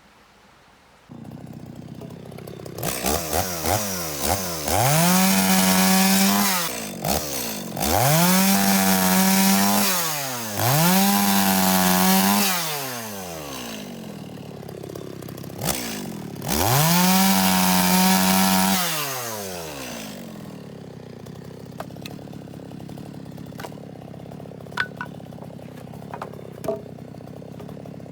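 Two-stroke chainsaw idling, then run up to full throttle four times for about two seconds each, falling back to idle between runs and after the last. This is typical of bucking logs into firewood.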